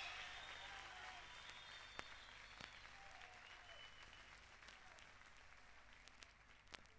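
Near silence: vinyl record surface noise, a faint hiss slowly fading, with a few scattered clicks and pops and the last faint traces of the recording dying away.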